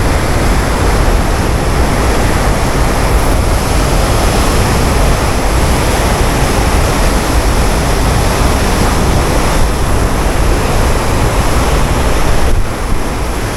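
Dam spillway outflow rushing and churning in a loud, steady wash of water noise, with wind buffeting the microphone.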